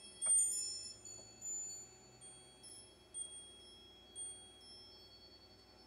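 Chimes ringing: high, long-ringing metallic notes struck at irregular moments, loudest just after the start, with a few more fainter strikes later.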